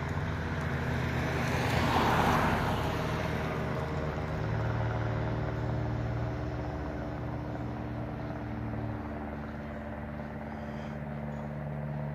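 Steady low motor hum made of several held pitched tones. A louder rushing noise swells and fades about two seconds in.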